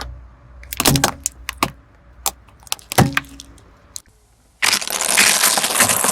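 Hard objects cracking and snapping under a car tyre: several sharp separate cracks, then a dense, loud crunching and crackling from about two-thirds of the way through.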